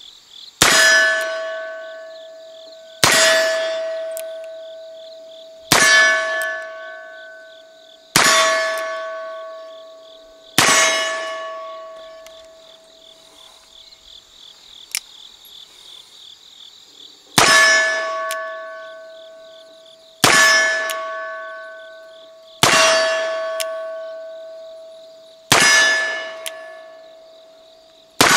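Ten shots from a replica Colt Richards cartridge-conversion revolver, fired about two and a half seconds apart in two strings of five with a pause between them. Each shot is followed by the clear ring of a struck steel target that fades over a couple of seconds. Insects chirp steadily underneath.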